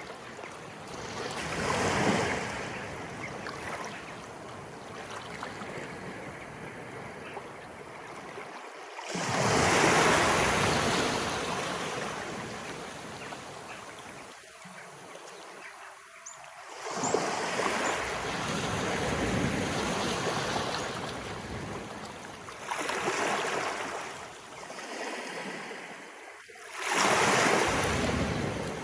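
Sea waves of an incoming tide rolling in and washing up, a continuous rush that swells into about five louder surges, one every five to eight seconds.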